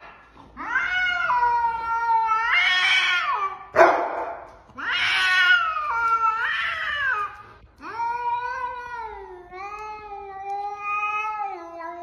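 A cat yowling aggressively at another cat in a face-off: three long, wavering yowls, the last one lower and steadier. A sudden harsh, noisy burst cuts in just before the second yowl and is the loudest moment.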